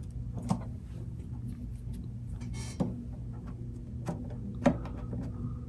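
Scattered small clicks and taps of hands handling the pickup, its surround and screws on a hollow-body archtop guitar, four or five sharp ticks a second or so apart, over a steady low hum.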